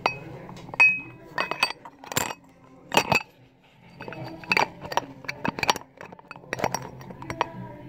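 Metal parts of a coffee grinder clinking and knocking against each other and the counter as the burr carrier and adjuster are handled: a series of sharp, irregular clinks, one ringing briefly about a second in.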